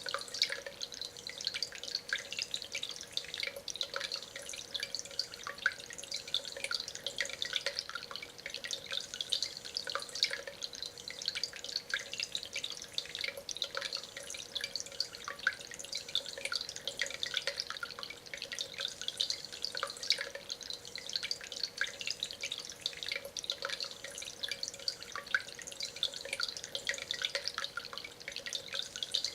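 Concrete-and-stone tabletop water fountain running: water trickling and dripping over stone in a steady, dense patter, with a steady hum underneath.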